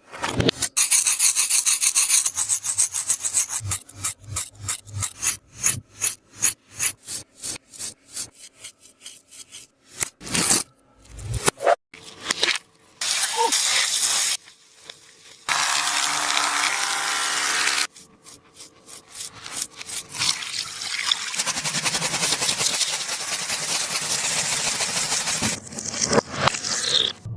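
Hands rubbing and scratching taba squishy toys: a fast run of short scratching strokes, several a second, then longer stretches of steady rubbing.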